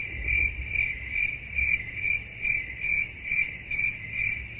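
Cricket chirping, a high chirp repeating about twice a second, dubbed in as the stock awkward-silence gag.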